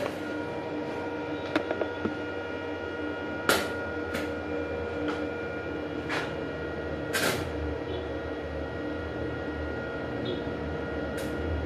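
Steady electrical machine hum with several fixed tones. A handful of sharp clicks and knocks cut through it, the loudest about three and a half and seven seconds in.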